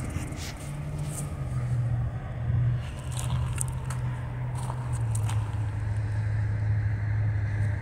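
Low, steady engine drone of a BNSF diesel freight locomotive approaching in the distance, with a few faint clicks over it.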